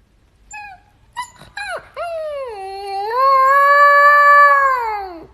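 A dog howling: a few short yips, then one long howl that dips, rises and holds before falling away at the end.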